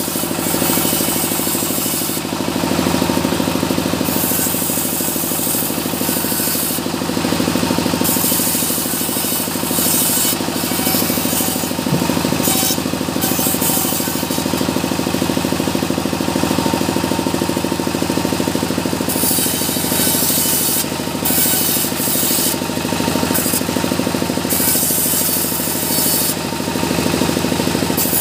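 Sawmill band saw running steadily while a small mahogany log is fed through it, the blade's rasping cut through the wood coming and going in passes of a few seconds each.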